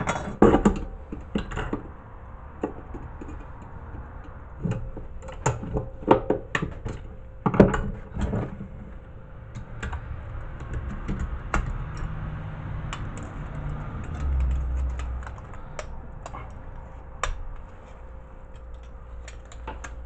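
Pliers clicking and clinking on a microwave magnetron's thin sheet-aluminum cooling fins as they are bent and broken loose: an irregular string of sharp metal clicks and taps.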